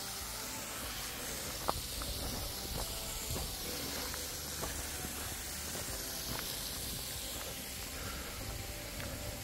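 Steady hiss of a fast-flowing stream, with a few footsteps and one sharp click a little under two seconds in.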